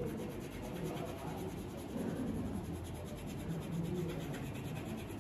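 Pastel crayon rubbing on paper in rapid back-and-forth strokes, over a low, uneven rumble.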